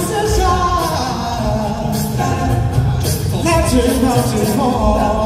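Male a cappella vocal group singing a pop medley in harmony: a lead voice over backing voices, with a steady vocal bass and beat underneath.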